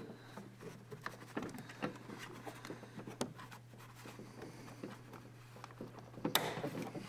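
Light rustling, scraping and small clicks of a plastic interior door trim panel and its wiring harnesses being handled, with a louder rustle a little after six seconds in. A low steady hum runs underneath.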